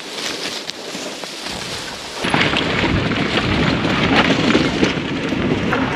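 Wind on the microphone: a rustling hiss at first, then from about two seconds in a heavy, continuous low rumble of wind buffeting.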